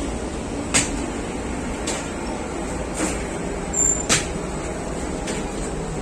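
Steady hum of bakery machinery with a faint high whine, broken by about five sharp knocks and clatters of work at irregular intervals, two of them close together a little after the middle.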